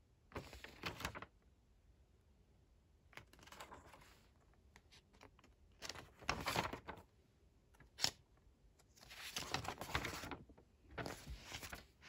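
Pages of a paperback textbook being turned, the paper rustling in about five bursts of a second or so each, with a single sharp click about eight seconds in.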